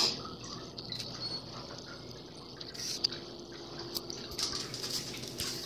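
Rainwater dripping: irregular drops and taps over a faint, steady low hum.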